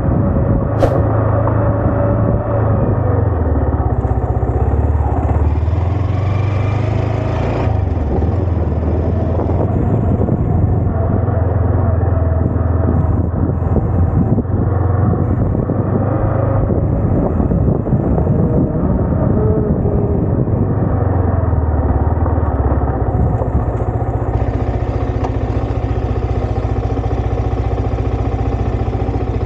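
Yamaha R15M's 155 cc single-cylinder engine running while the bike is ridden, its low note rising and falling with the throttle. Through the middle stretch the sound turns rougher and busier before settling back to a steadier note.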